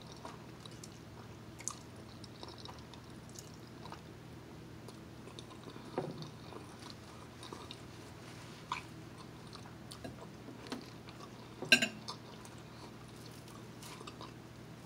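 Quiet chewing of a mouthful of fettuccine alfredo, with scattered small mouth clicks over a faint steady hum, and one sharper click near the end.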